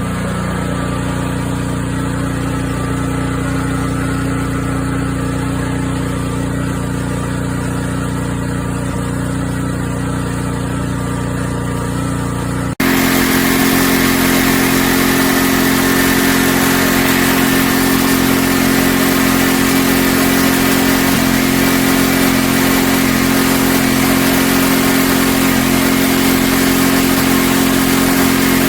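maXpeedingrods 3500W four-stroke petrol generator engine running at a steady speed. About thirteen seconds in, the sound cuts abruptly to a louder, closer recording of the engine running, with more hiss.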